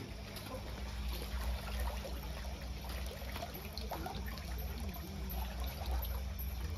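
Water trickling and running steadily, over a low steady hum.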